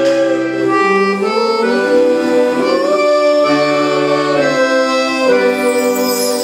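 Instrumental music led by accordion, playing held chords that change about once a second.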